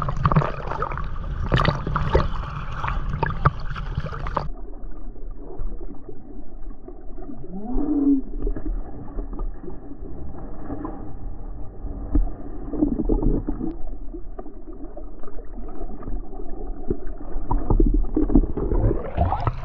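Choppy seawater sloshing and gurgling around a camera bobbing at the surface, with muffled splashes of people diving in. About four seconds in the sound turns suddenly muffled, as when the microphone dips under the waterline, and it opens up again near the end.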